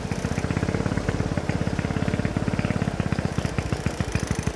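Motorcycle engine and exhaust running at low, steady revs with a fast, even putter.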